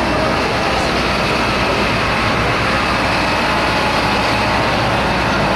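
1977 Ford F-350's gas engine running loud and steady.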